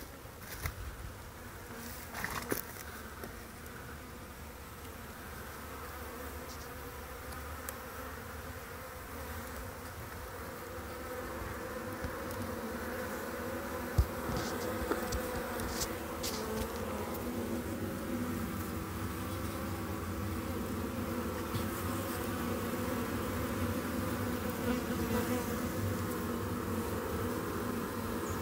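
A honey bee colony in a cut-open hollow tree buzzing, a steady hum of many bees that grows louder over the first half. A few light knocks early and one sharp click about halfway through.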